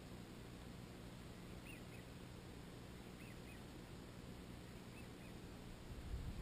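Ducks calling faintly, a few short calls over a low steady background noise. A low rumble comes in near the end.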